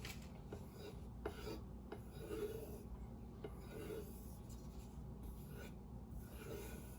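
Knife blade drawn in light strokes across a strop, a faint repeated rubbing with a few small clicks; this is the final stropping that takes the last burr off the freshly sharpened edge.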